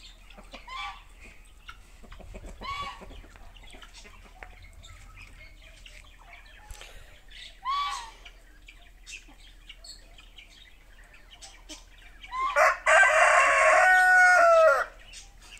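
Chickens calling with a few short, soft clucks, then, about twelve seconds in, a rooster crows once, loudly and for about two seconds, the crow dropping in pitch at the end.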